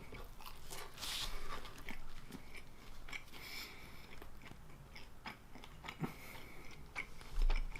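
A person chewing and biting pizza close to the microphone, with scattered wet mouth smacks and a few crunches. There is a brief low bump near the end.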